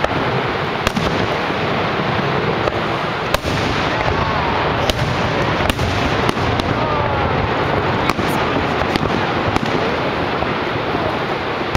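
Aerial fireworks shells bursting in a string of sharp bangs, about one a second, over a steady rushing background noise.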